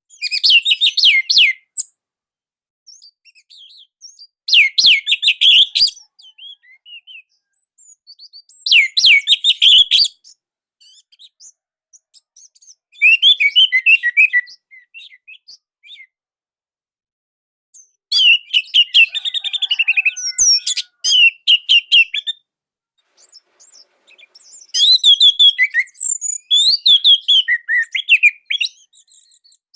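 Orange-headed thrush singing: about six quick, dense phrases of high notes, each a second or few long, coming every four or five seconds with short pauses between. The song is tight and loud.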